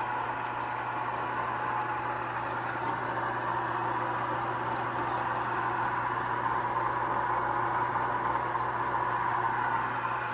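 KUMIO compressor ice cream maker running mid-churn, a steady hum from its compressor and churning motor.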